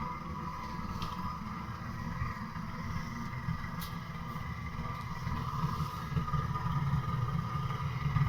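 Gas boiler running hot with a steady low hum and a fluttering rumble under a faint high whine. The owner calls the rumble farting and wonders whether the boiler has overheated.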